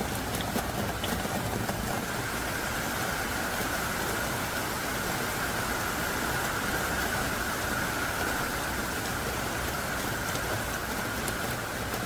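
Heavy downpour: a steady, dense hiss of hard-falling rain.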